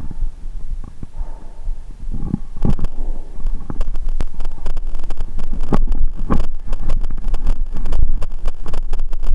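Bicycle rolling over wooden ramps and boards: a constant low rumble of tyres and wind on the microphone, broken by frequent knocks and rattles, the loudest about three seconds in and twice around six seconds in.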